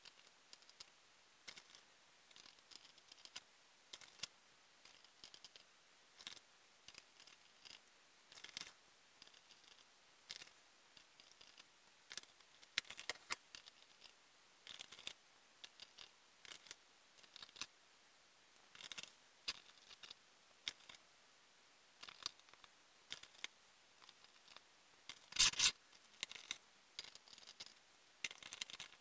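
Faint, scattered scratches and clicks of watercolour paint tubes being handled: uncapped, squeezed into small plastic half pans and set down on the table. The loudest cluster comes about 25 seconds in.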